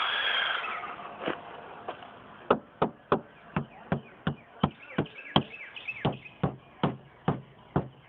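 A brief rush of noise, then a steady run of about fifteen sharp knocks, roughly three a second, starting a couple of seconds in.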